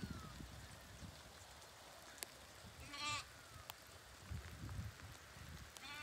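Sheep bleating: two short, wavering, high bleats, one about three seconds in and another near the end, faint, with some low rumbling in between.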